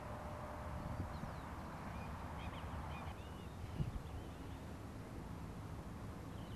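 Faint outdoor ambience: a few short bird chirps over a low, steady rumble, with a soft knock about four seconds in.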